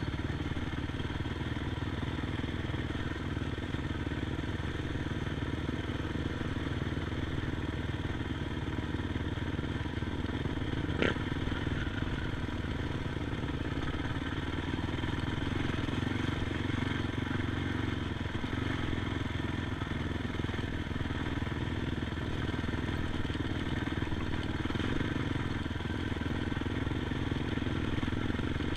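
ATV engine running steadily at an even pitch, with one sharp click about eleven seconds in.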